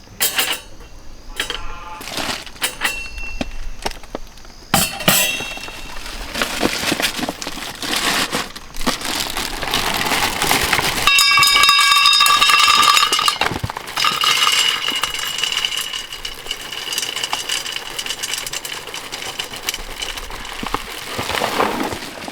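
Metal cookware and utensils clinking in a run of sharp knocks, then a steady hiss, with a loud high-pitched tone for about two seconds near the middle.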